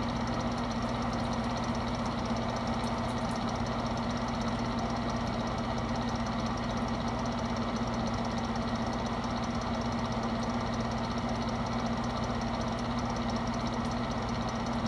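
Portable space heater running with its fan on, a steady hum with a low tone over an even rush of air.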